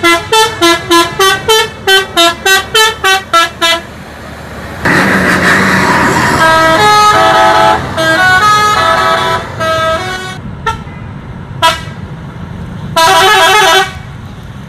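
Tour buses' musical multi-tone air horns (telolet horns) playing. A fast run of short toots at changing pitches, about five a second, lasts for the first four seconds. Then come longer held chords that shift in pitch, and one more short blast near the end.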